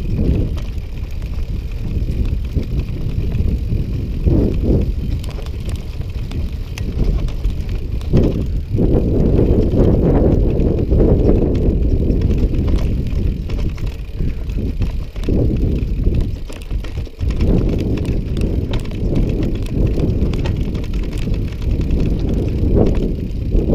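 Wind buffeting the microphone on a moving bicycle, with steady tyre rumble over a rough track. The rumble dips briefly a few times.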